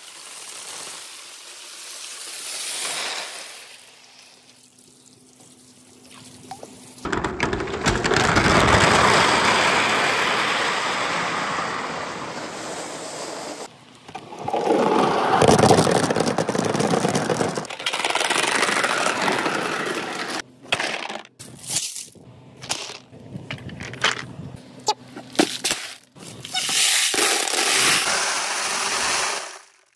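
Marbles and billiard balls rolling fast through bamboo tubes: long stretches of steady rushing rumble, broken by a run of sharp clacks and knocks about two-thirds of the way through.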